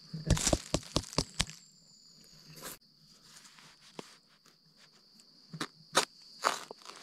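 A knife chopping and scraping into soil and roots at the base of a bamboo shoot, with dry leaves crunching. There is a quick run of sharp cuts in the first second and a half and a few scattered ones near the end, over a steady high-pitched drone.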